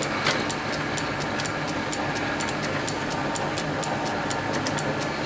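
Metal lathe running steadily with a machine hum and a light, regular ticking of about two or three ticks a second.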